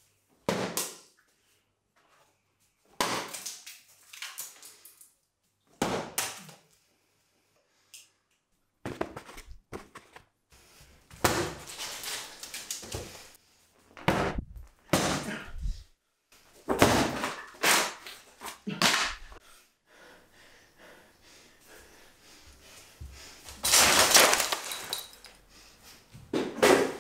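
A series of separate thuds and knocks, some with a cracking, breaking edge. They are sparse at first and come thick and fast through the middle, and the loudest, longest crash falls near the end.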